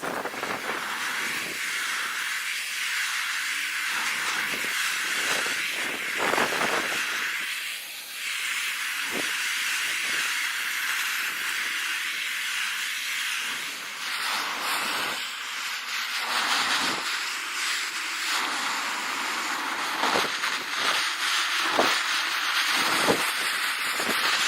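Gas torch flame hissing steadily as it chars the surface of a pine wood slab, with a few brief flares.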